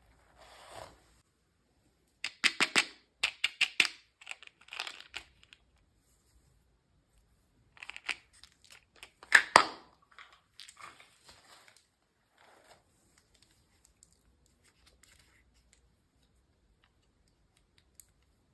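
Packaging being torn open and crinkled by hand, in two busy spells of rustling and crackling with a pause between, then a few faint ticks.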